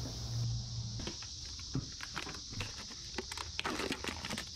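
Cicadas droning steadily in the background. From about a second in come scattered clicks and crackles of a clear plastic clamshell pack as a new drum brake shoe is handled.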